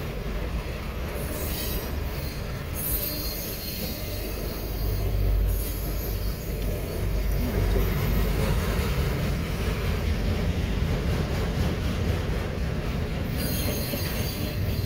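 Autorack freight cars of a passing freight train rolling by, a steady low rumble of steel wheels on rail. Stretches of high-pitched wheel noise come in about a second and a half in and again near the end.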